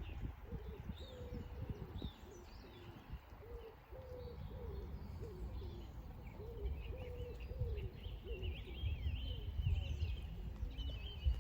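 Birds calling: a long run of short, low cooing notes, one or two a second, with higher chirping from a small bird joining near the end, over a low rumble.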